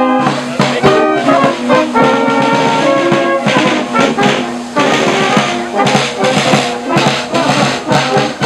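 Bavarian brass band playing while marching: tubas, trumpets and clarinet over the beats of a marching side drum.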